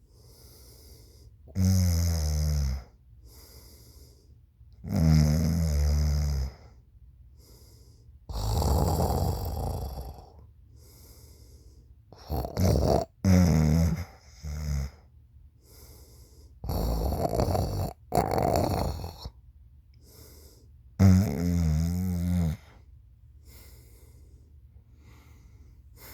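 Snoring: loud snores lasting one to two seconds come every few seconds, with quiet gaps between.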